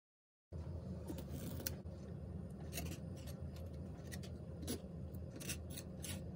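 Metal palette knife scraping and tapping acrylic paint on a canvas: a scatter of short scratchy clicks over a steady low hum, starting abruptly about half a second in.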